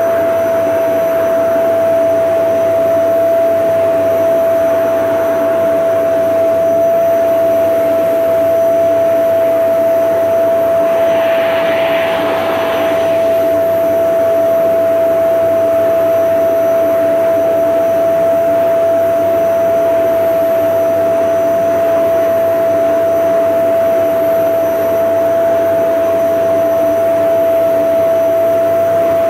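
Vacuum cleaner running steadily, its motor giving a constant whine over a hum. About twelve seconds in there is a brief swell of airy hiss.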